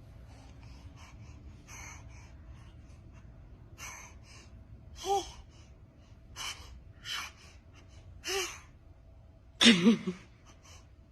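A baby gasping in short, quick breaths, some voiced, about one every second. A louder voiced burst comes near the end, like the build-up to a sneeze.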